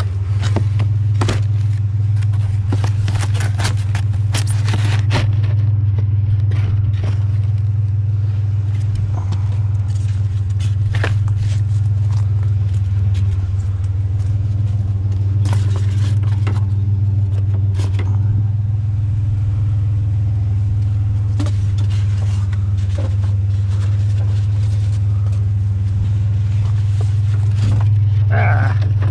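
Truck driving, a steady low engine and road rumble with frequent rattles and clicks.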